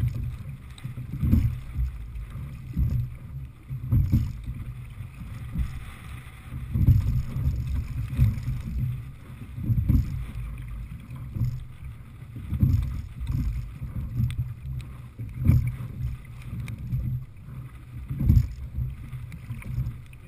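Sculling boat under way in choppy water: wind buffets the microphone and water rushes along the hull, with a rhythmic surge and knock about every three seconds as each oar stroke is taken.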